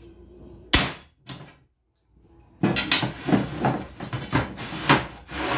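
A scored porcelain tile strip snapping under tile-breaking pliers: a sharp crack about a second in and a smaller snap just after. Then a run of knocks and clatter as the pliers are laid down on the board and the tile is handled.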